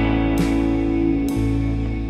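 Background music: plucked guitar notes over a held low bass, a new note struck twice.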